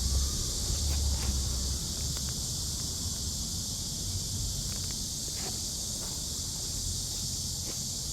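Cicadas in a loud summer chorus, a continuous high-pitched buzz that holds steady throughout. Under it there is a low wind rumble on the microphone, strongest in the first couple of seconds, and a few soft taps.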